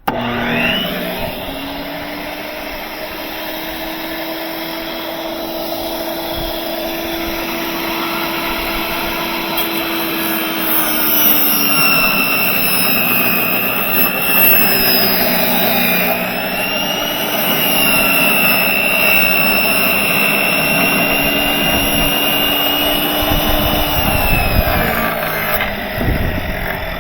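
Table saw running and ripping a wooden board lengthwise. The motor's pitch sags a few times as the blade takes the cut, and the saw winds down near the end.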